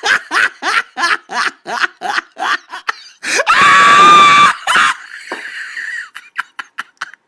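A person laughing in quick repeated bursts, about three a second. Then comes a single high-pitched scream lasting about a second, followed by a short breathy noise and a few faint clicks.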